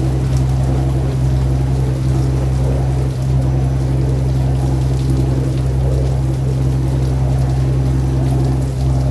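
Boat engine running steadily with an even low drone, alongside the rush of water.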